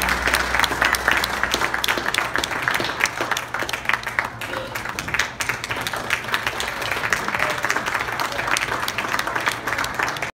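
Audience applauding, a dense patter of many hands clapping, with some voices in the crowd. It cuts off suddenly at the end.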